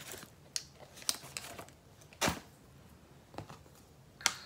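Makeup items clicking and clattering while someone rummages for a brush: a series of separate sharp knocks, the loudest a little past two seconds in and another near the end.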